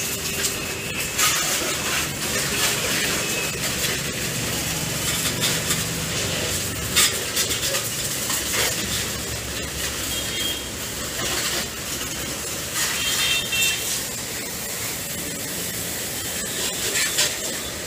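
Water jet from a washing hose spraying onto a motorcycle and the wet tile floor: a steady hiss with uneven splashing and spattering.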